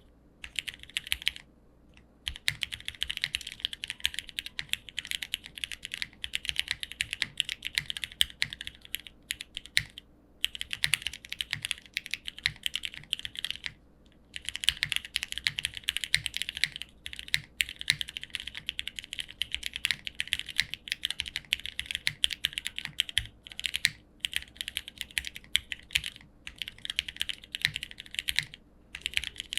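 Neo65 mechanical keyboard with lubed and filmed Cherry MX2A switches, an aluminium plate, no foam and PBT keycaps being typed on quickly in continuous runs, with a few short pauses.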